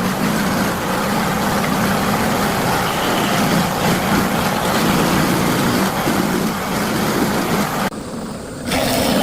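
Electric scroll saw running steadily as it cuts wood, a continuous mechanical buzz; about eight seconds in it briefly goes quieter and duller before resuming.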